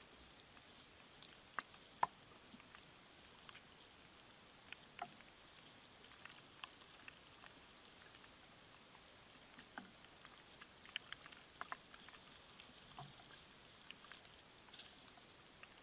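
Faint, irregular pattering of small ticks from wet snow coming down, with a couple of louder ticks about two seconds in.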